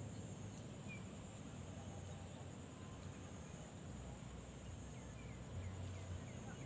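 Outdoor ambience: a steady, high-pitched insect drone with a few short bird chirps over it, about a second in and again near the end, above a low rumble.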